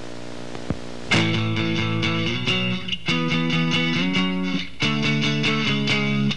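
Rock music with guitar chords, starting about a second in and changing chord every second or so.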